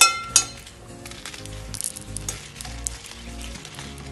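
Dry red chillies sizzling in hot oil in a steel kadai, turned with a metal spoon that clinks against the pan twice in the first half-second, then a steady sizzle.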